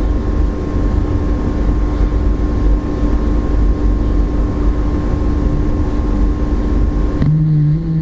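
Bulldog snoring in its sleep: a steady low rumble, changing about seven seconds in to a higher, buzzing snore.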